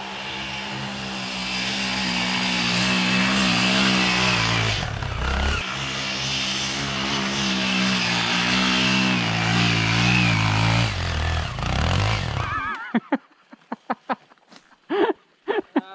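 Minsk X250 dirt bike's 250 cc four-stroke single-cylinder engine running under load while ridden, its revs rising and falling, with a brief drop about five seconds in. The engine sound stops abruptly near the end, leaving a few short sharp sounds.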